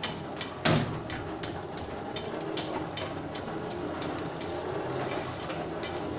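Coal forge blower running, forcing air into the fire, with a steady run of light clicks about three a second and one louder clank under a second in.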